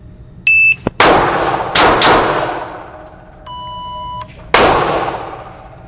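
A shot timer beeps to start, then a Ruger LCR revolver fires several shots within the next two seconds, each echoing in the indoor range. A lower beep sounds three seconds after the start beep, and one more shot follows.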